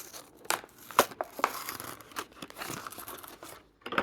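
A Matchbox die-cast car's plastic blister pack and cardboard backing card being torn open: irregular crinkling and tearing with sharp cracks, the loudest about a second in.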